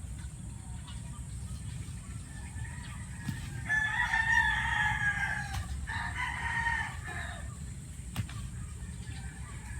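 A rooster crowing: one long call in the middle, with a short break partway through.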